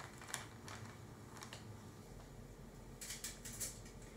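Faint, scattered clicks and light crinkling from kitchen tongs working in a plastic ziplock bag of flour as a coated chicken piece is lifted out and set on a foil-lined tray, with a short cluster of crinkles about three seconds in.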